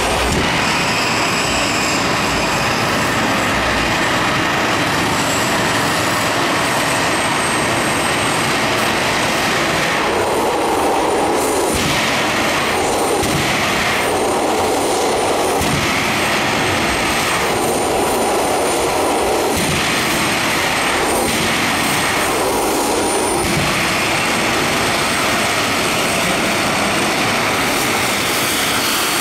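Small jet turbine on a go-kart running steadily with a thin high whine over a loud rushing noise. Through the middle it swells and drops several times, a second or two apart.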